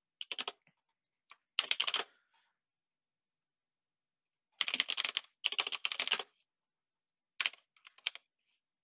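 Typing on a computer keyboard in about five short runs of quick key clicks, with dead silence between the runs.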